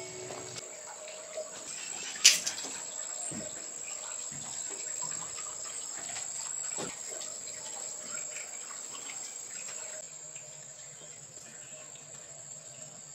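Steady high-pitched drone of insects, with one sharp click about two seconds in and a few soft thumps.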